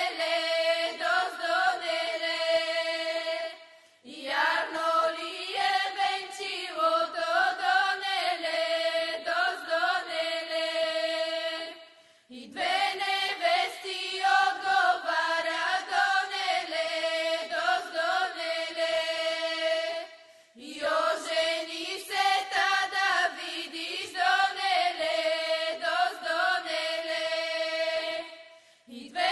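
A group of women singing a Bulgarian folk ritual song in long phrases of about eight seconds, each closing on a held note, with brief breaths between phrases.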